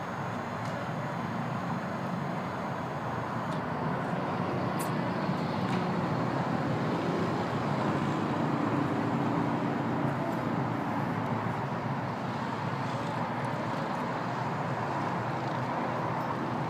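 Steady motor-like rumble and hum, swelling slightly around the middle.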